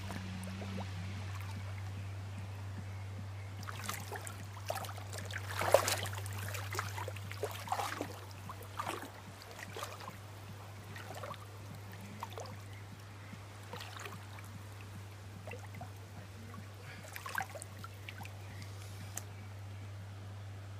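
Shallow river water running over a sandy, weedy bed, with small splashes and trickling. These come in clusters between about four and nine seconds in, and again around seventeen seconds. A steady low hum runs underneath.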